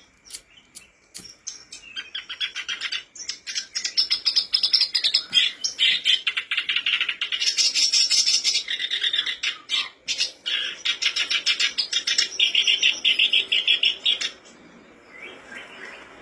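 Black-browed reed warbler singing a long, fast chattering song of rapidly repeated high notes, starting about a second and a half in and stopping suddenly about two seconds before the end.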